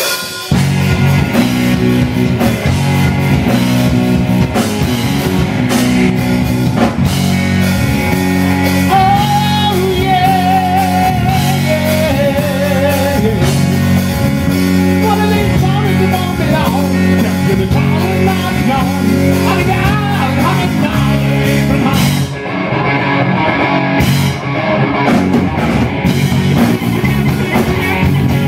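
A live rock band plays a loud Southern rock song, with electric guitars through Marshall amps, a bass guitar and a drum kit. The band comes in at full volume just after the start.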